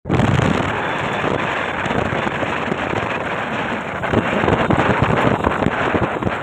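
Wind buffeting on a phone microphone carried at speed along a road: a loud, dense, crackling rush that grows rougher about four seconds in.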